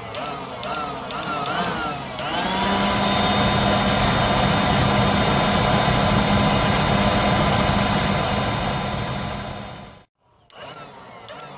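Small leaf blower spinning up with a quick rising whine about two seconds in, then running steadily, blowing air into a small furnace's fire. It stops abruptly near the end. Before it starts there are scattered crackling clicks and a wavering warble.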